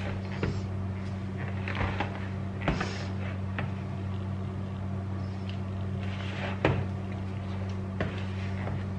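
Hands kneading soft yeast dough in a glass bowl: irregular squelches and slaps of the dough, with a few sharper knocks against the bowl. A steady low hum runs underneath.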